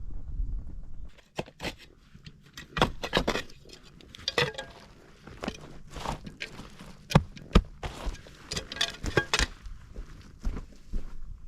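Irregular run of light knocks and clinks, as of objects being handled and set down, after a low rumble that stops about a second in.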